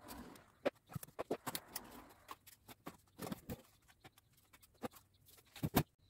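Small product boxes and packages being unpacked from a cardboard shipping box: irregular taps, clicks and rustling of cardboard and wrapping as items are handled and set down, with two sharper knocks near the end.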